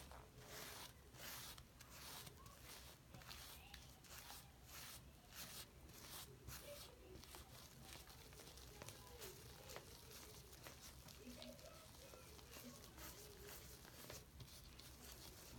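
Faint wet squishing and rubbing of a foam sponge worked by hand with shaving cream lather and soapy water, in repeated quick strokes.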